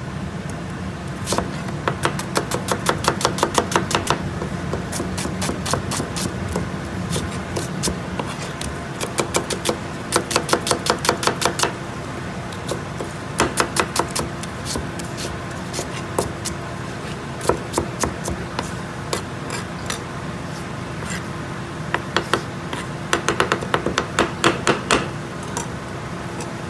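Chef's knife dicing an onion on a wooden cutting board: quick runs of knife strikes on the board, about six or seven a second, in bursts with short pauses. A steady low hum runs underneath.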